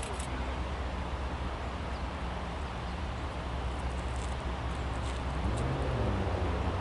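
Diesel freight train rumbling low and steady, slowly growing louder as it approaches. About five and a half seconds in, a short low tone rises and falls in pitch.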